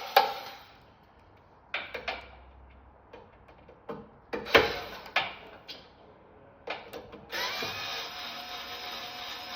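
Small electric screwdriver backing the screws out of a plastic transformer box. A handful of sharp clicks and knocks come first, then the motor runs steadily from about seven seconds in.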